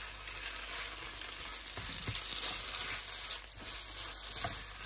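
Grated apple and lumps of jaggery sizzling in a nonstick wok while being stirred with a spatula: a steady frying hiss with a few soft scrapes of the spatula on the pan, as the jaggery is worked in to melt into the apple halwa.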